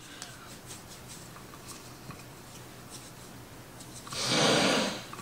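Wooden rolling pin rolling out bread dough on a floured board: faint rubbing, then one louder rolling stroke lasting about a second near the end.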